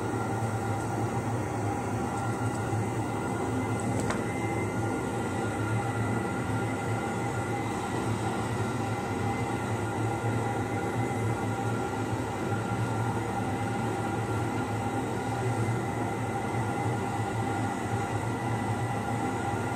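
A steady machine hum with several held tones that does not change, and a faint click about four seconds in.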